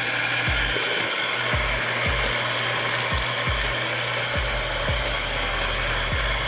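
Background music with a steady kick-drum beat, over a loud, even rushing noise like a blower.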